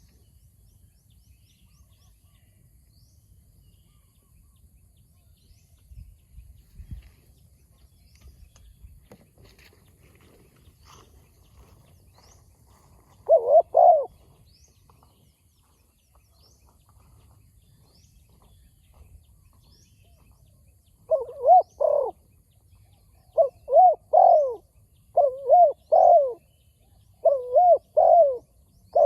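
Spotted dove cooing: one phrase about halfway through, then phrase after phrase in quick succession over the last eight seconds. Faint small-bird chirps in the background.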